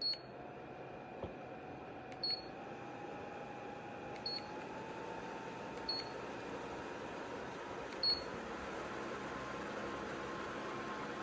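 DR.PREPARE tower fan beeping at each press of its remote, five short high beeps about two seconds apart, as its speed is stepped up. Under the beeps the fan's rush of air grows steadily louder and its motor hum rises in pitch.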